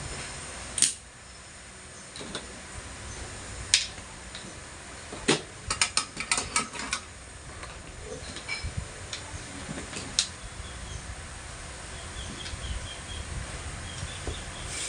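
Sharp little clicks and taps of small tools and parts being handled. There is a quick flurry of them around six seconds in and a few single ones before and after.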